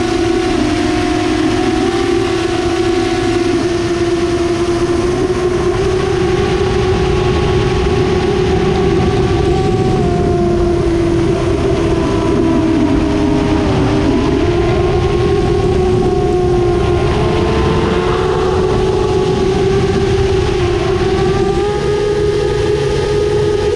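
Source One 7-inch FPV quadcopter's EMAX 2807 1500Kv brushless motors and 7-inch tri-blade props in flight: a steady buzzing whine over rushing air. The pitch wavers with the throttle, dipping briefly a little past the middle and then settling slightly higher.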